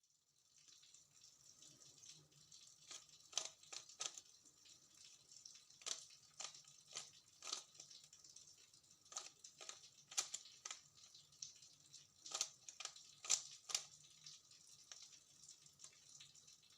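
Rubik's cube layers being turned by hand: faint, irregular plastic clicks and clacks, some coming in quick pairs and short runs.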